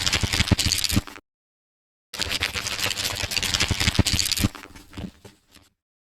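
Pages of a book riffled quickly, a rapid flutter of paper flicks in two runs with a short silent gap between; the second run tails off as the last pages fall.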